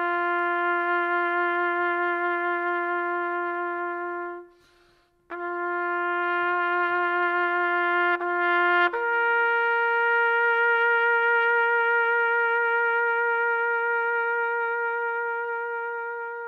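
Solo trumpet playing slow, long-held notes. A low note is held about four seconds, breaks off, and is played again. Then a note a fourth higher is held for about seven seconds and slowly fades.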